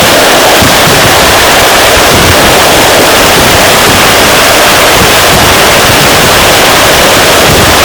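Dense, continuous barrage of firecrackers going off in rapid succession, merging into a steady wall of bangs and crackle loud enough to overload the recording.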